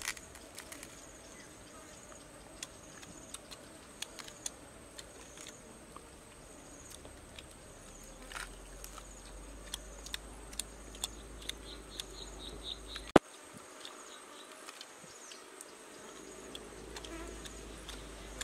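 Insects chirping steadily, with a short run of quick higher chirps about twelve seconds in. Scattered small clicks and crackles come from a charred roasted duck being torn apart by hand, and one sharp click sounds about thirteen seconds in.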